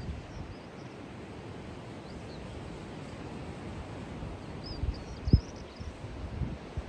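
Open-air ambience: a steady hiss with wind buffeting the microphone in a few short low thumps, the sharpest just over five seconds in, and small birds chirping high and thin, in a little cluster about five seconds in.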